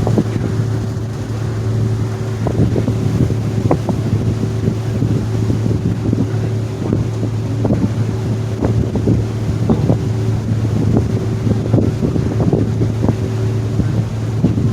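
Staten Island Ferry's engine droning steadily, a low hum with a higher steady tone above it, with wind gusting on the microphone.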